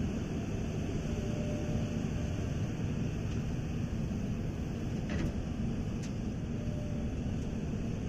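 Steady low diesel engine drone of a Hitachi ZX350 excavator at work, with an articulated dump truck's engine running alongside. Two faint clicks sound a little past the middle.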